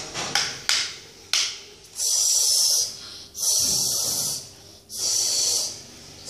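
Three separate mouth-made 'shhh' hisses, each about a second long, imitating a spray washing a toy truck. They follow a few sharp clicks of hard plastic toy trucks being handled in the first second and a half.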